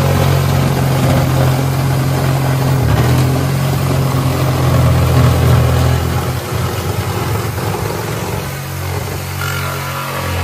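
Makita reciprocating saw cutting through a skiff's fiberglass-covered wooden deck, its blade running steadily, with a small cut made to gauge how far the rot goes. The saw is loudest for the first six seconds, then runs quieter and rougher.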